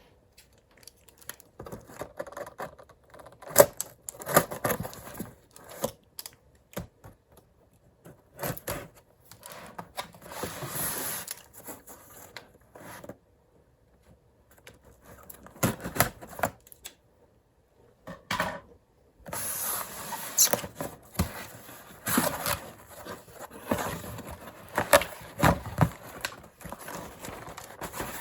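A cardboard box being opened from the bottom and its packaging handled: irregular clicks and knocks, scraping, and tearing or rustling of cardboard and paper, with a couple of short quiet pauses past the middle.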